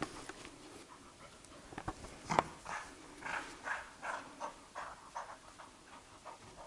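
Labrador puppy and adult Labrador play-wrestling: a few sharp knocks about two seconds in, then quick rhythmic panting, about three breaths a second, that fades near the end.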